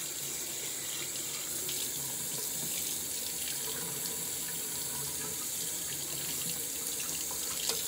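Tap running steadily into a bathroom sink, water splashing in the basin as a makeup brush is rinsed and scrubbed under it.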